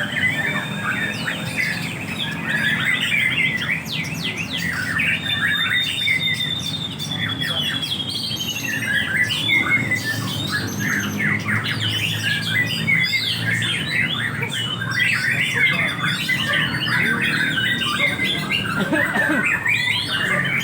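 Many caged songbirds singing and calling at once in rapid, overlapping chirps and whistled phrases, over a steady low murmur of people.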